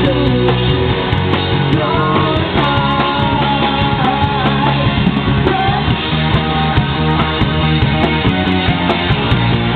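Rock band playing live: an instrumental passage of guitars, bass and drums with a steady beat and a melody line wandering over the top.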